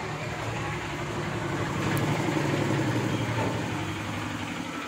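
A motor vehicle's engine running with a steady low hum, growing louder around the middle and easing off again toward the end.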